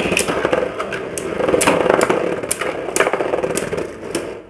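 Two Beyblade Burst tops, Tempest Dragon and Rage Longinus, spinning in a plastic stadium with a steady whir. They clash against each other and the stadium wall in repeated sharp clacks, about eight of them spread through.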